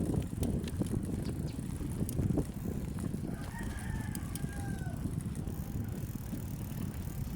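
A rooster crowing once, a call of nearly two seconds starting about three seconds in. Underneath runs a steady low rumble of wind and riding noise, with scattered small clicks.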